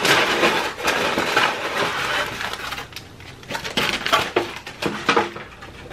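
Paper food wrappers crinkling and rustling as they are handled and lifted: a dense crackle for about three seconds, then separate sharp crackles.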